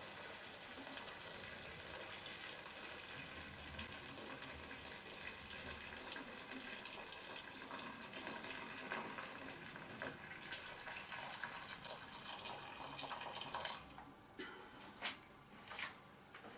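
Just-boiled water poured from a kettle into a pot of braising steak: a steady pour that stops about three-quarters of the way through, followed by a few light knocks.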